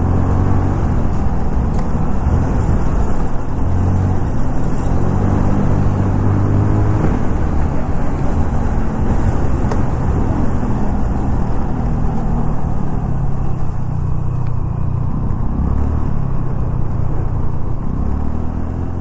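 Scooter engine running while being ridden, its pitch rising and falling with the throttle, over a steady rushing road noise.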